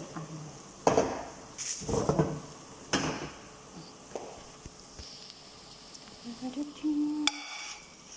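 Sliced onions frying in oil in a nonstick frying pan with a soft sizzle, broken by several clattering knocks of pots and utensils being handled on the stove about one, two and three seconds in.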